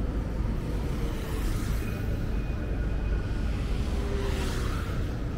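Night city street ambience: a steady low traffic rumble, with two cars passing, their tyre noise swelling and fading about one and a half and four and a half seconds in.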